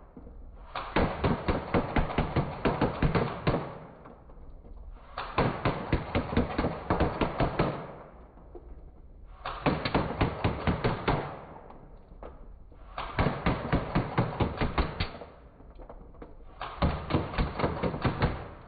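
Airsoft gun firing full auto in five bursts of about three seconds each, rapid clicks with BBs striking a cardboard pizza box.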